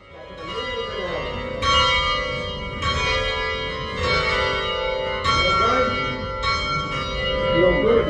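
Tower bells rung by hand from their ropes in the ringing chamber. A new bell strikes about every second, and the ringing tones of one bell carry over into the next. Faint voices underneath.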